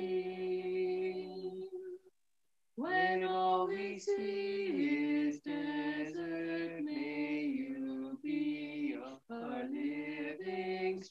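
A small family group of voices singing a hymn in harmony. They hold each note and move in steps from note to note, with a short pause between phrases about two seconds in.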